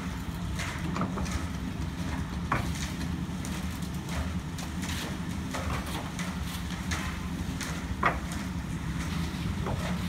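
Bricks clinking and knocking as they are handled and set down, sharp knocks at irregular intervals with the loudest about eight seconds in, over a steady low rumble.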